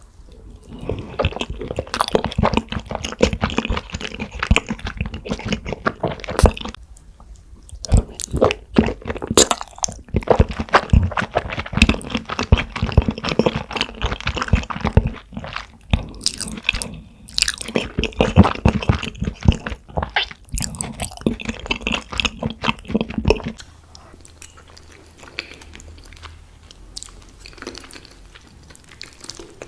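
Close-miked ASMR eating of lasagna: a dense run of bites, chewing and mouth clicks, with a short pause about seven seconds in. The eating sounds drop away to a much quieter level about six seconds before the end.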